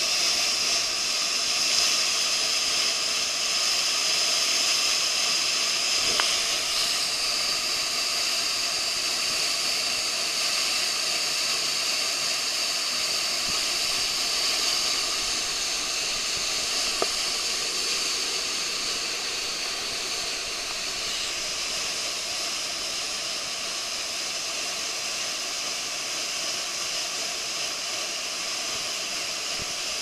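Waterfall pouring down a rock face: a steady rush of falling water and spray, easing slightly in the second half, with two faint clicks about six and seventeen seconds in.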